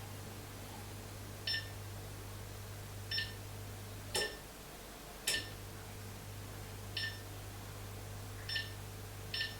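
Electric fireplace beeping, one short high beep each time a remote-control command switches its flame mode, about seven beeps at uneven intervals a second or so apart. Under them a steady low hum, which cuts out for about a second in the middle, between two sharper clicks.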